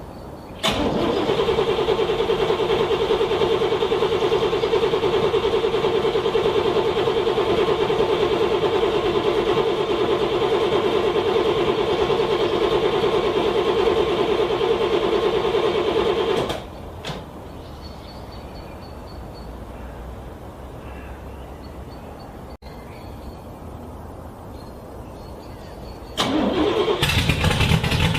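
A car's starter cranking a cold engine steadily for about sixteen seconds without it catching, then a pause and a second cranking attempt near the end: the engine struggling to start in freezing weather.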